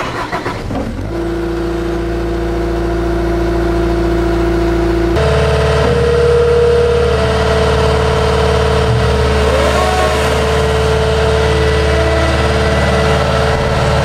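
Caterpillar skid steer's diesel engine catching in the first second and idling steadily. About five seconds in the throttle is raised and the engine steps up to a higher, steady speed.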